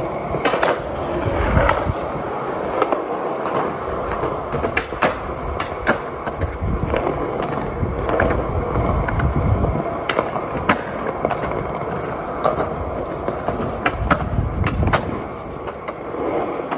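Skateboard rolling on rough concrete, a steady rumble that swells at times, broken by many sharp clacks of the board hitting the ground as the skater ollies onto a ledge and tricks off it.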